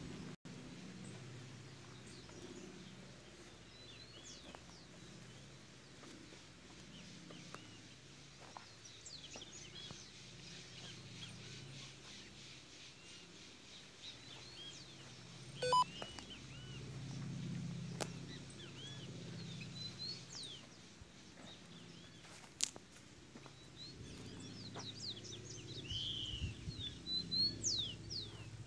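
Birds chirping and calling, short calls throughout that come thicker and louder near the end. A short electronic beep sounds about halfway through.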